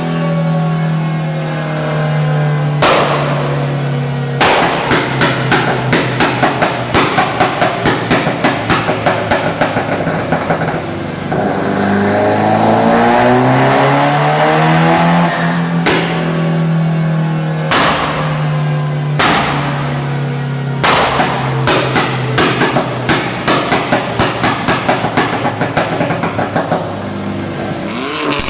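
Car engine held at revs and revved, with the exhaust popping and crackling: a few single sharp bangs and two long runs of rapid crackles, each several seconds long.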